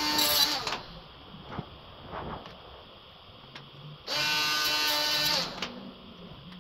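Small handheld rotary tool with a pink grinding stone, running in two short bursts at a steady high pitch while grinding the plastic radiator grille. The first burst is under a second, right at the start, and the second lasts about a second and a half, starting about four seconds in. Light clicks and knocks from handling the grille come between them.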